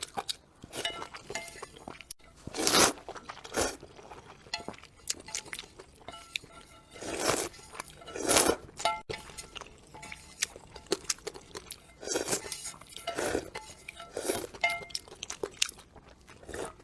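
Close-up eating sounds: repeated crunchy bites and chewing of crisp food, with light clinks of chopsticks or utensils against a bowl in between.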